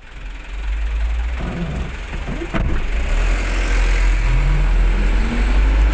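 Car engine and road rumble heard from inside the cabin as the car pulls away through a toll gate, the engine note rising as it accelerates, from about four seconds in.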